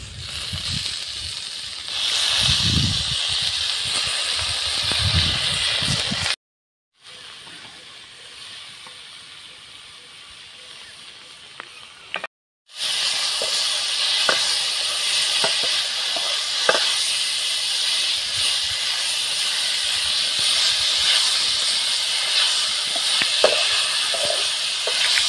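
Chicken pieces sizzling in hot oil with onion masala in an iron kadai over a fire, a steady loud hiss. Now and then a coconut-shell ladle scrapes and knocks against the pan as it stirs. The sizzle cuts out twice briefly and is quieter for a few seconds between the cuts.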